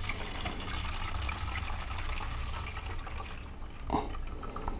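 Water poured from a vacuum thermos through a sieve and plastic funnel into a plastic bottle, a steady trickle that thins out about three and a half seconds in. A short knock near the end.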